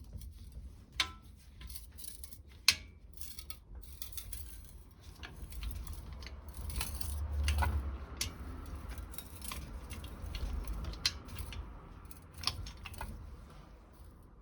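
Metal hand tools being handled: scattered sharp clicks and clinks over low rumbling handling noise, with two louder clicks early on.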